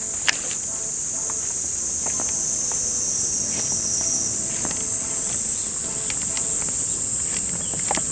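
Insects droning steadily in one high-pitched band, with a few faint clicks underneath.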